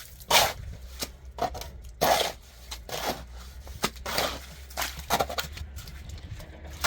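Repeated rasping scrapes, roughly one a second and unevenly spaced, from something being scraped or rubbed by hand.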